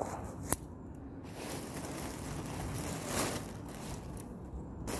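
Hand-trimming of ornamental grass: one sharp snip or click about half a second in, then rustling and handling noise of the cut grass, with a softer swell of rustling around three seconds, over a steady low rumble.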